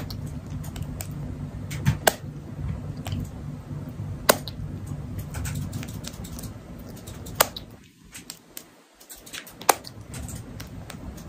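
Kitten purring, a low steady rumble that breaks off briefly about two-thirds of the way through, with scattered sharp clicks over it.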